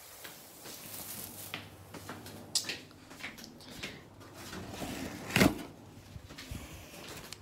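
Scattered clicks, knocks and rustling from a phone being carried and handled, with one loud sharp bump a little past halfway through.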